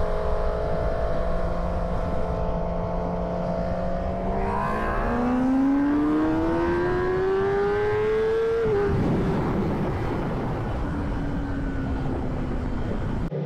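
Kawasaki ZX10R's inline-four engine holds a steady note, then revs up in one long rising pull for about four seconds, like a hard run in a single gear. The throttle closes about nine seconds in, and wind rush takes over.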